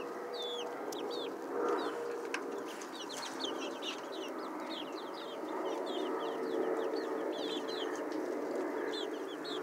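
A flock of young chickens peeping continuously. Many short, high, falling peeps overlap several times a second over a low background murmur.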